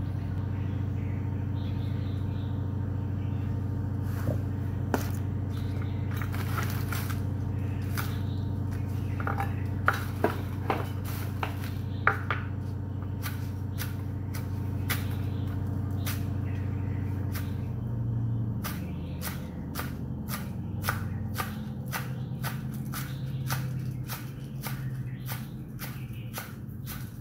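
A chef's knife chopping green onions on a wooden cutting board. Scattered knocks become a quick, even rhythm of about three a second in the last third, over a steady low hum.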